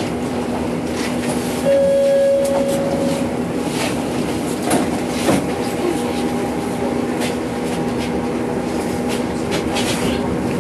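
Helsinki tram at a stop, with a steady electrical hum from the tram's equipment and scattered light clicks. A single long beep sounds about two seconds in.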